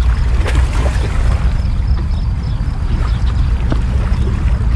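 Wind buffeting the camera microphone: a steady loud rumble, with a few faint clicks over it.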